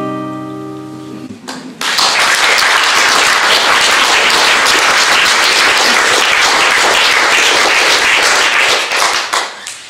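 Final chord of an acoustic guitar ringing out and fading. Then, about two seconds in, an audience applauding, dying away near the end.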